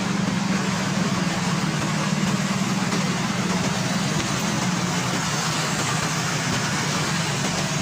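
Road traffic: a vehicle engine running steadily with a constant low hum under an even wash of traffic noise.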